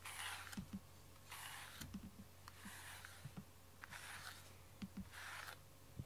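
Wire-pin slicker brush drawn through a cat's fur: a soft brushing swish about once every second and a quarter, five strokes in all.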